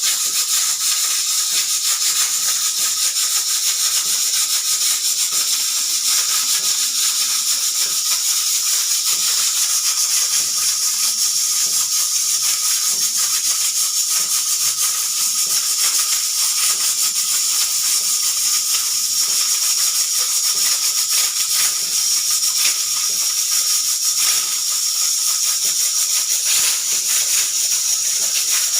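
Pressure cooker venting steam in a steady, loud hiss with a faint steady tone underneath, its whistle not working properly.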